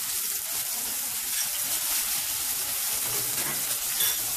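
Sliced onions sizzling in hot oil in a metal pan, a steady hiss with small pops. There is a short louder click about four seconds in.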